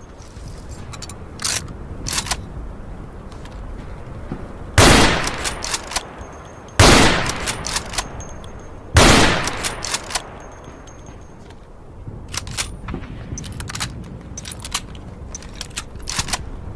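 Three shots from a Mauser Gewehr 98 bolt-action rifle, about two seconds apart, each with a long echoing tail. Short, sharp clicks come before the first shot and after the last.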